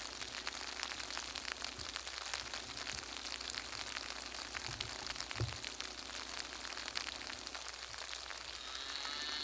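Light rain falling outdoors: a steady hiss made of many fine drop ticks, with one low thump about five and a half seconds in.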